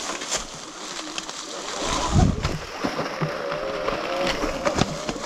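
A bicycle ridden along a rough forest track: steady rolling noise with scattered clicks and rattles, a heavy thump about two seconds in, and a wavering squeal-like tone lasting about two seconds from about three seconds in.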